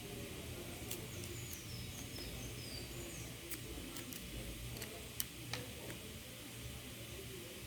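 Scattered sharp cracks and clicks of a macaúba palm fruit's dry, woody husk snapping off as it is peeled by hand, the loudest about five seconds in. A bird chirps faintly between one and three seconds in, over a steady low hum.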